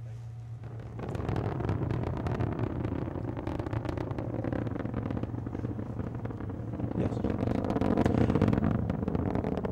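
Proton-M rocket's first-stage engines roaring in ascent: a dense, crackling rumble that comes in suddenly about a second in and swells near the end.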